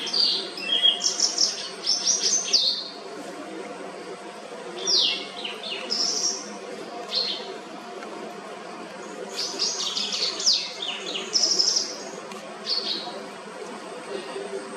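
White-browed wagtail singing: clear chirps and trills in three bursts, at the start, about five seconds in, and from about nine and a half to thirteen seconds, over a steady low hum.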